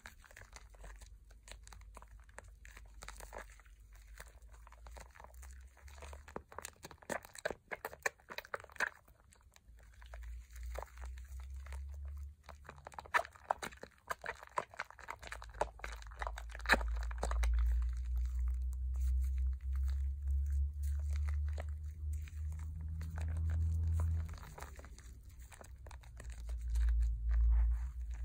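Hands squeezing and kneading thick Pears soap lather over a bowl of soapy water: wet foam squishing with many small crackles and clicks. From about halfway a low rumble joins in and grows louder.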